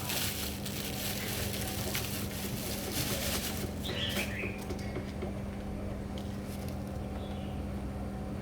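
A steady low hum over background noise, with a short bird chirp about four seconds in.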